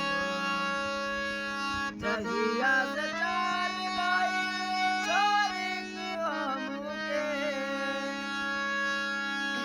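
Harmonium playing a Bhojpuri folk-song melody over steady held drone notes; the melody moves from about two seconds in to about seven seconds in, then settles back onto the sustained chord.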